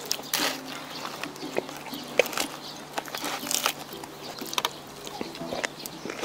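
Close-miked eating sounds: chewing with wet mouth smacks and clicks, irregular and scattered throughout.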